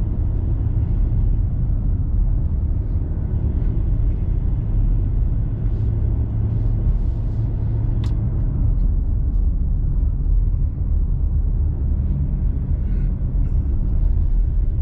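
Steady low rumble of engine and tyre noise inside a diesel vehicle's cabin while it drives up a mountain road, with a single sharp click about eight seconds in.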